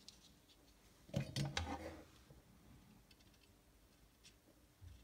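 Mostly quiet bench, with a short cluster of clicks and rustling about a second in from a soldering iron being lifted out of its coiled wire stand.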